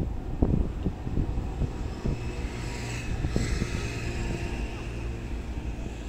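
Wind buffeting the microphone, with a steady vehicle engine hum setting in about two seconds in.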